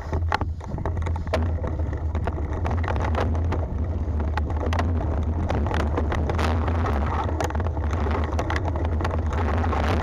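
Mountain bike riding fast down a rough dirt trail: steady rumble of tyres and wind on the microphone, with frequent rattles and knocks from the bike over the bumps.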